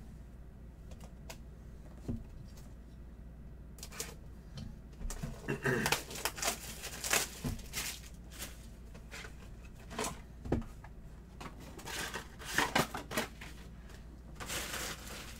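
Trading cards and pack wrappers being handled by hand: irregular rustling, crinkling and sliding scrapes that start about four seconds in and come in clusters.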